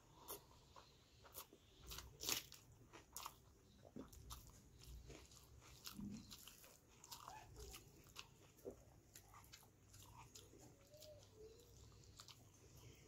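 Faint close-up eating sounds: fingers squishing and mixing rice and curry on a steel plate, with wet chewing clicks and smacks at an uneven pace. Faint short calls, likely nearby chickens clucking, come in from about ten seconds in.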